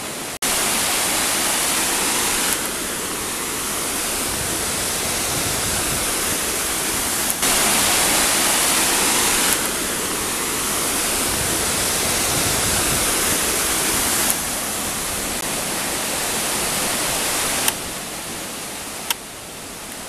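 Iadolina waterfall on the Iad valley stream, pouring over rock steps into deep pools: a steady rushing of falling water. Its loudness and tone change abruptly several times.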